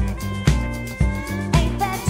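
Country band playing an instrumental passage: an Emmons pedal steel guitar holds sliding notes over drums and bass keeping a steady beat about two to the second.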